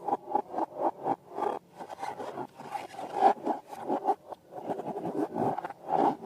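Rubbery scraping and rubbing of balloons and slime being worked by hand. It starts as quick strokes, about five a second, then turns into a denser, irregular scraping.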